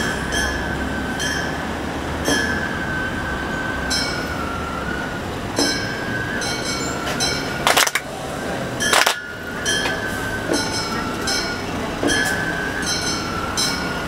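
Gion-bayashi festival music: a high bamboo flute holding and stepping between notes, over small bronze kane gongs struck in a repeating pattern. A little past the middle come two loud hand claps, a little over a second apart.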